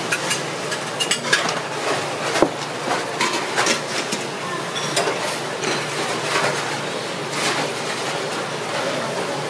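Irregular light clicks and scrapes of a thin metal spatula working inside a cracked-open sea urchin shell as it is cleaned out, over steady background noise.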